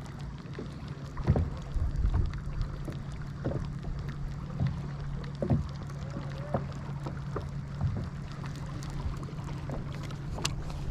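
Kayak on the water: scattered knocks on the hull and water moving against it, over a steady low hum.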